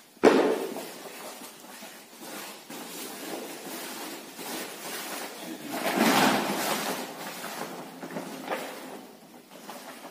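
Hands scraping and turning a heap of soil-compost mix on a plastic sheet, with irregular rustling and scraping. A sharp knock comes about a quarter-second in, and a longer, louder scrape about six seconds in.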